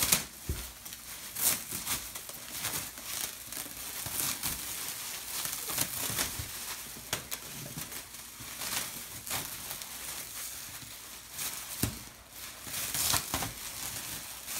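Clear plastic wrap crinkling and rustling as it is pulled off a rolled-up, compressed foam dog bed, with irregular sharp crackles throughout.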